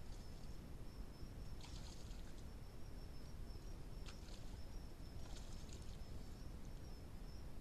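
Faint night ambience through a trail camera's microphone: a steady high-pitched insect trill over a low hiss. A few faint rustling clicks come about one and a half, four and five and a half seconds in.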